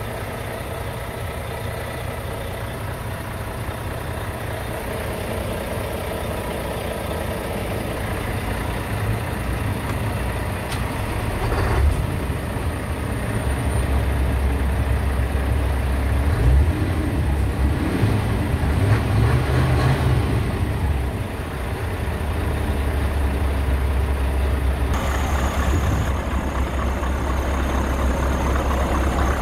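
Scania R tractor unit's V8 diesel engine idling steadily, a deep low hum that grows louder in the second half, with a few brief thuds in the middle.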